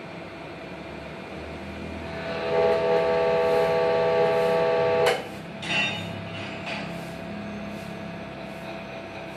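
Hydraulic system pressurising the repaired cylinder: a steady low hum, and about two seconds in a loud whine of several steady pitches sets in. It holds for about three seconds, then cuts off suddenly with a click, followed by a couple of short knocks.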